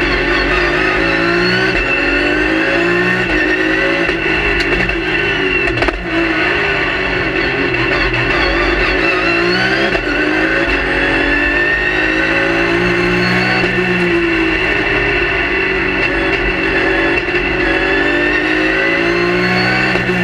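Race car engine heard from inside the cockpit at race pace, the revs climbing and dropping again and again through gear changes and braking, over a steady high whine.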